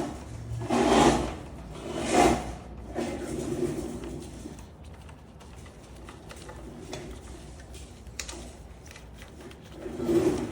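Hand tools and brake parts being handled while the caliper bolts are hand-tightened: two brief clattering scrapes about one and two seconds in, then softer rattling and scattered light clicks.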